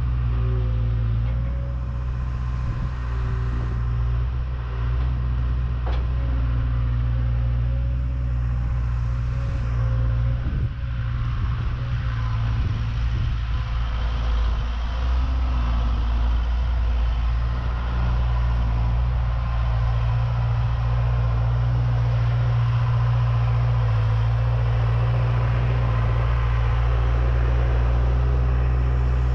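Diesel engine of a John Deere 270 skid steer on over-the-tire tracks, running steadily under work as it spreads millings, growing a little louder in the second half as the machine comes close.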